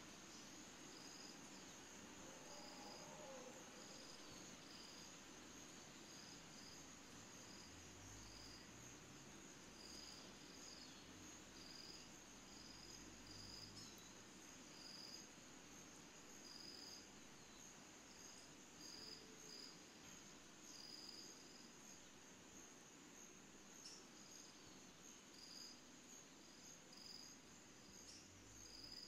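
Faint chorus of crickets and other insects: a steady high trill with short chirps repeating at irregular intervals.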